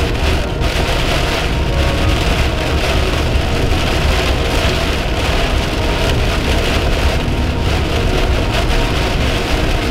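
Heavy rain drumming on a moving car's windshield and body, heard from inside the car over the steady low rumble of tyres on the flooded road.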